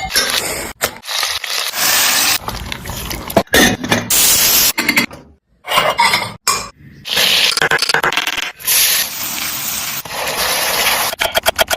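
Cooking in a pan, cut into short clips: a sizzling hiss with a spatula scraping and stirring, breaking off abruptly between clips and dropping out briefly about halfway through.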